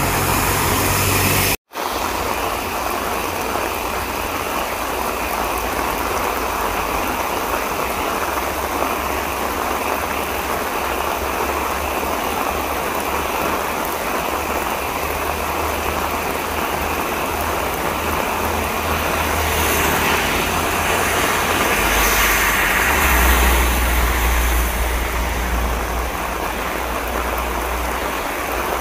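Heavy rain pouring down, a loud steady hiss. A little past two-thirds of the way through, a vehicle passes on the waterlogged road with a low engine rumble and the swish of tyres through water.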